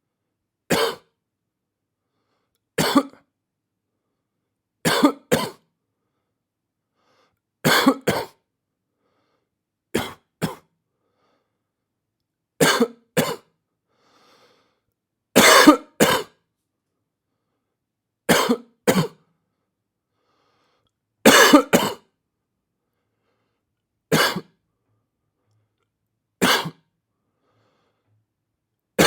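A person coughing: short coughs, singly or in quick pairs, repeating about every two to three seconds with silence between them.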